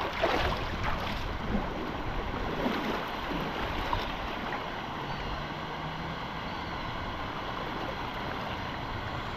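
River water rushing steadily past, with a brief louder burst of noise about half a second in.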